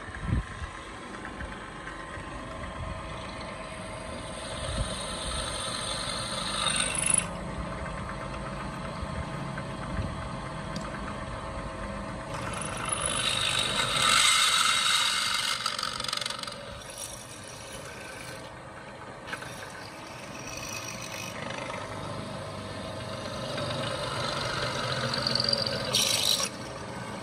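Old Japanese bench drill press running with a steady motor hum while a twist drill bores through square steel tube. The cutting noise swells and fades three times as the bit is fed, and cuts off sharply near the end. A single knock is heard at the very start.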